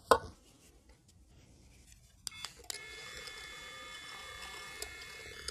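Heat gun switching on with a couple of clicks about two and a half seconds in, then its fan and heater running with a steady whine of several held tones. A short, louder sound at the very start.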